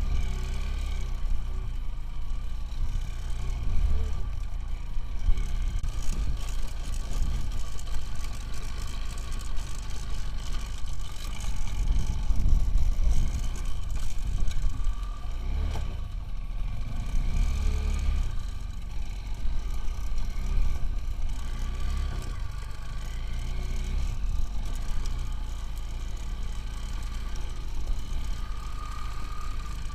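Motorcycle engine running while riding off-road, with a steady low rumble whose loudness swells and falls.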